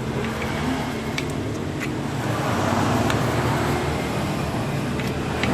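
A motor running steadily with a low, even hum, and a few light clicks over it.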